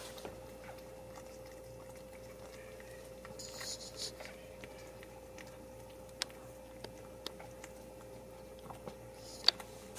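Ragdoll mother cat licking and chewing over her newborn kittens to clean them: soft wet licking, with a brief louder patch about four seconds in and small mouth clicks, one sharp click near the end. A faint steady hum runs underneath.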